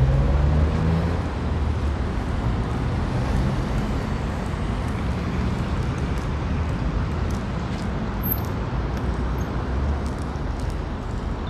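Road traffic: a steady wash of vehicle engine and tyre noise, loudest at first and slowly easing off.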